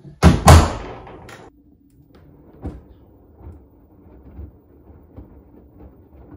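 A washing machine door slammed shut once, loud and sharp, with a short ring-out. After it there is only a faint low rumble with a few soft knocks.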